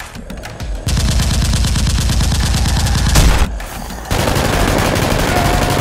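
Rapid automatic gunfire, many shots a second in long bursts, starting about a second in, breaking off briefly after about three and a half seconds and then resuming.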